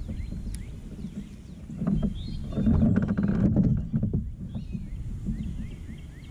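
A bass being landed into a kayak: splashing and thrashing as it comes out of the water, loudest between about two and four seconds in.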